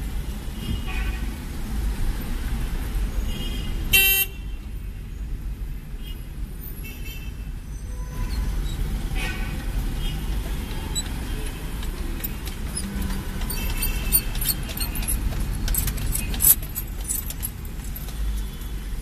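Steady engine and road rumble heard from inside a car driving in city traffic, with a short, loud car-horn toot about four seconds in and more scattered honking from the traffic around it.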